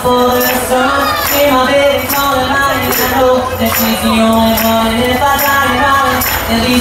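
Live country-pop song: a man singing into a microphone while strumming an acoustic guitar, over a steady jingly percussive beat about twice a second.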